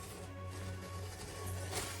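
Background music with a sustained low bass.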